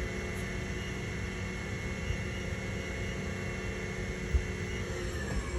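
Spindle of a TRAK FHM7 CNC bed mill running at its top speed of 5,000 RPM, a steady whine of several tones over motor and air noise. There is a short thump about four seconds in, and the pitch starts to fall just before the end as the spindle begins to slow.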